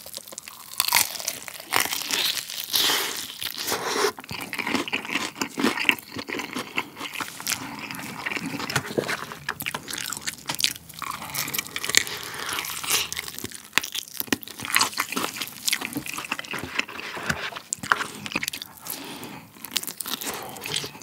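Close-miked crunching and chewing of crispy fried chicken coated in garlic breadcrumb flakes, with sharp crackling bites that come again and again.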